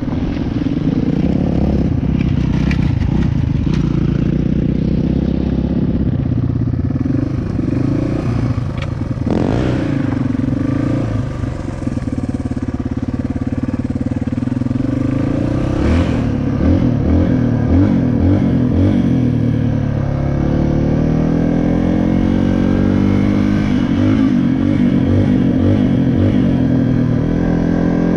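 Dirt bike engine running under way, its pitch rising and falling as the throttle is opened and closed.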